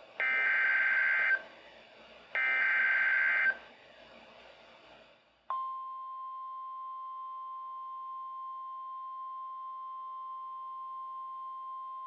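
Emergency Alert System signal played through a Midland WR120BEZ weather radio's speaker. There are two roughly one-second bursts of the SAME digital header tones, then about halfway through a steady single-pitch warning alert tone starts and holds. Together they mark the start of a new severe thunderstorm warning activation.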